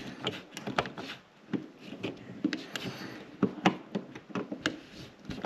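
Scattered clicks and light knocks of hand tools and metal parts being worked at a metal electrical box and its conduit fittings, at an irregular pace of a few a second.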